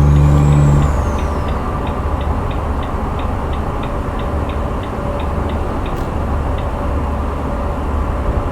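Truck engine running as heard inside the cab, with the turn-signal indicator ticking about twice a second until it stops roughly six seconds in. A loud steady pitched tone sounds through the first second and then cuts off.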